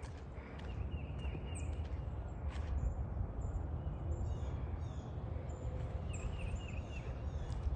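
A small bird calling in quick runs of short chirps, once about a second in and again about six seconds in, with thinner high notes between, over a steady low rumble.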